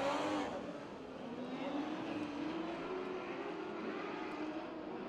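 Pack of lightning sprint car engines running hard on a dirt oval, several engine notes overlapping and rising slowly in pitch as the cars accelerate.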